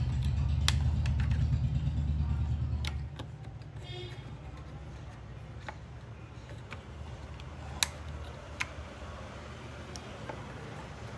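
Light scattered clicks and taps from a harmonium's keys and wire coupler linkages as they are fitted and adjusted by hand, the sharpest about eight seconds in. A low steady hum runs under the first three seconds and then stops.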